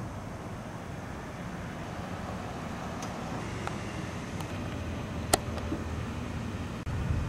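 Steady low rumble of distant city traffic, growing slightly louder, with a sharp click about five seconds in.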